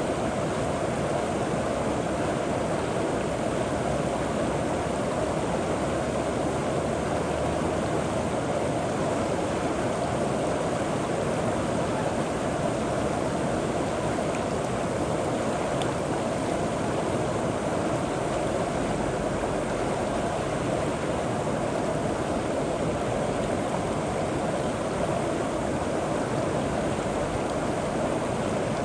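River water flowing steadily over rocks, a continuous rushing and gurgling.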